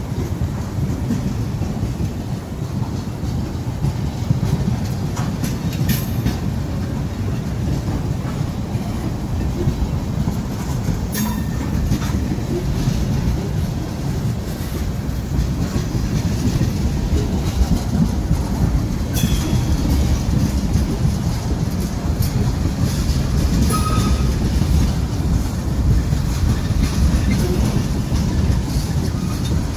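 Freight cars of a manifest freight train rolling past: a steady low rumble of steel wheels on rail, broken by a few sharp clanks about 6, 11 and 19 seconds in.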